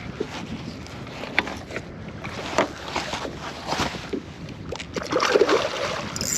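Water sloshing and splashing around a fishing kayak, with scattered knocks and clicks on the hull and wind on the microphone.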